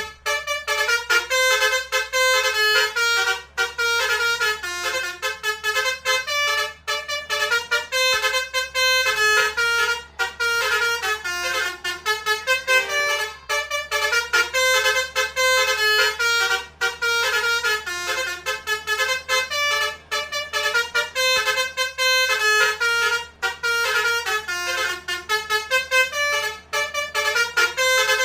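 Basuri musical bus horn, a multi-tone 'telolet' horn, playing a fast melody of stepping notes, several per second, with only brief breaks.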